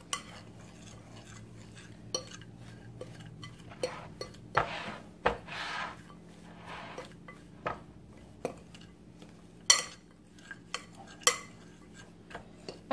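A metal fork clinking and scraping against a glass mixing bowl while stirring a crumbly pecan and brown-sugar crumb topping. There are scattered taps, a longer scrape about five seconds in, and a couple of louder clinks near the end.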